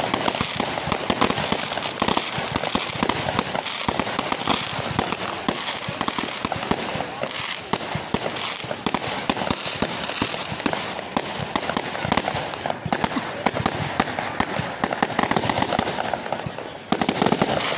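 Aerial fireworks display: shells bursting overhead in a dense, continuous run of bangs and crackles, with a louder volley near the end.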